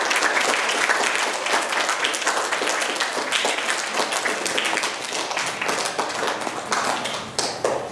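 Audience applauding: many hands clapping in a dense patter that gradually tapers off near the end.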